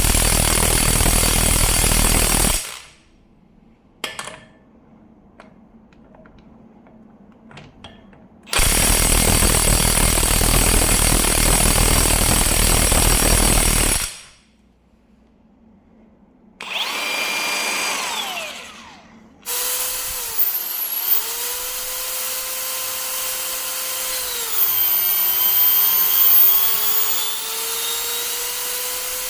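Kobalt KIW 5024B-03 brushless cordless impact wrench hammering on a nut in two long bursts of several seconds each, with short pauses between. After that the motor whines with its pitch sliding up and down as the speed changes.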